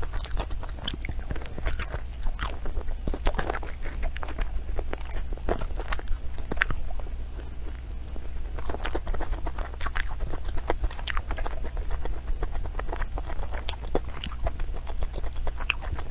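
Close-miked ASMR eating: biting and chewing food, with a steady stream of sharp, irregular crunches and crackles.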